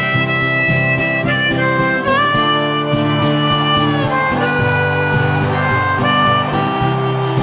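Harmonica playing a melody of held notes, one bent about two seconds in, over a strummed acoustic guitar, as the instrumental introduction to a folk song.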